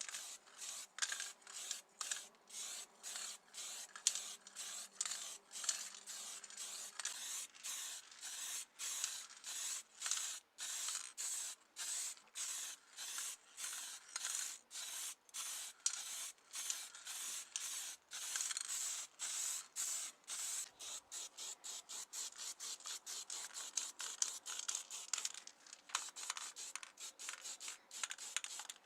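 Rapid back-and-forth rubbing strokes, about two to three a second, growing quicker in the last several seconds.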